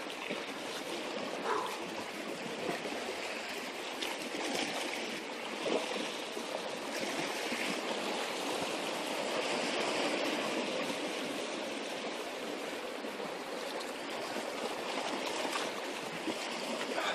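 Sea water washing and trickling among shoreline rocks, a steady even rush of water.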